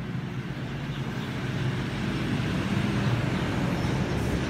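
Low engine hum of a motor vehicle, growing louder over the first three seconds and then holding steady.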